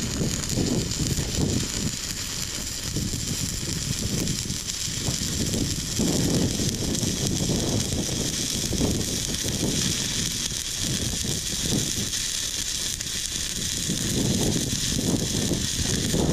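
Stick (shielded metal arc) welding arc from a ZENY 160-amp DC inverter welder on 110 V, a steady crackling hiss as a fill bead is run on steel.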